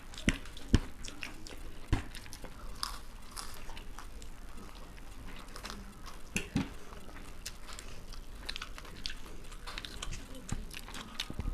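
People chewing and biting into food close to the microphone, with many short crisp crunches and clicks. A few louder knocks come in the first two seconds and again around six and a half seconds in.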